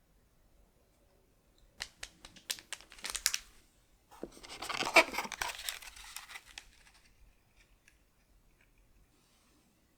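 Packaging being torn open by hand. A run of crinkling crackles comes first, then about four seconds in a louder tearing that lasts some three seconds.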